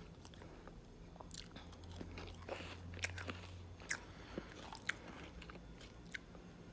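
Shaved ice made from carbonated water being bitten and chewed: irregular crunching and crackling, with sharp cracks about three, four and five seconds in.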